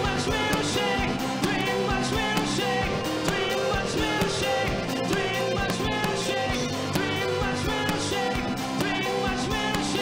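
Live rock band playing with a male vocalist singing over a steady drum beat, guitar and keyboards.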